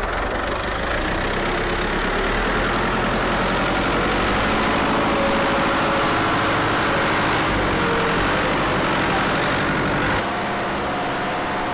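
Tractor's diesel engine running steadily while being driven; the sound drops in level about ten seconds in.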